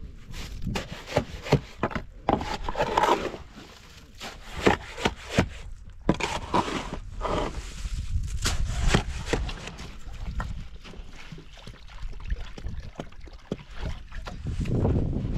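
Steel shovel scraping into dry earth and tipping scoops into a metal wheelbarrow: repeated gritty scrapes with sharp clinks and knocks of the blade.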